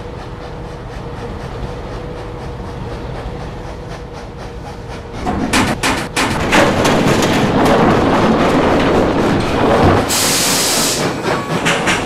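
A low engine hum, then about five seconds in a sudden crash as a load of coal drops from an overhead coal hopper onto a diesel locomotive. A loud rush of pouring coal lasts several seconds and ends in a short bright hiss, followed by a rhythmic clatter.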